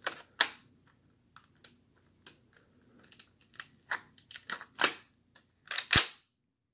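Hard plastic Lego bricks clicking and clacking as the mechanism of a Lego AR-15 replica is worked by hand, including the magazine being pulled out. A rapid run of sharp clicks, with the loudest clacks near the start, about five seconds in and about six seconds in.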